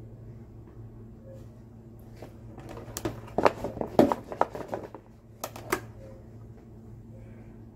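A white plastic container of cut watermelon rind pieces handled in a stainless steel sink: a run of light clattering knocks starting about two and a half seconds in, then two more a second later, over a steady low hum.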